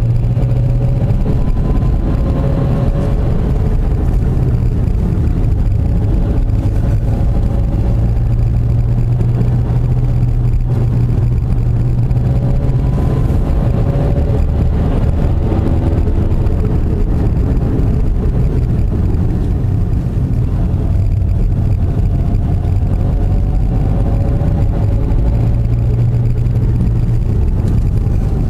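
Car engine and road noise heard from inside the cabin while driving a winding tarmac road, the engine note rising and falling several times as the car speeds up and slows.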